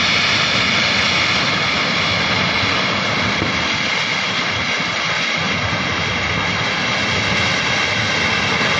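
Loud, steady rush of floodwater from a swollen river in spate.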